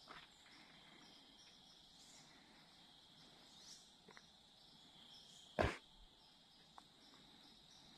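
Faint, steady high-pitched chorus of insects. One short, sharp, loud bang about five and a half seconds in.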